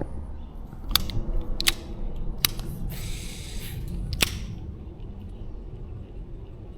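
Several sharp clicks, about four spread over the first four seconds, with a brief hiss of about a second near the middle, over a steady low rumble.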